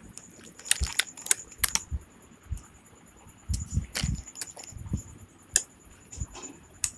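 Handling noise of a phone held close to the microphone: irregular sharp clicks and taps mixed with dull low thumps as a hand moves against it.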